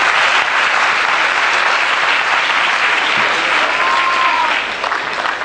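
Audience applauding, the clapping fading near the end, with a short curved tone, rising then falling, heard about four seconds in.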